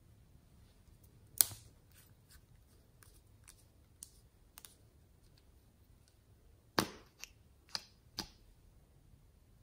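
Small plastic clicks as a Peri's Ink lip-tint bottle is handled and its screw cap is twisted open and pulled off. One sharp click comes about a second and a half in, then a few faint ticks, then four clicks in quick succession around seven to eight seconds in.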